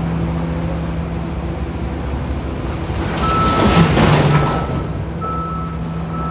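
Heavy diesel truck engine running steadily, with a louder noisy swell about three and a half seconds in. A high beep repeats on and off from then until the end.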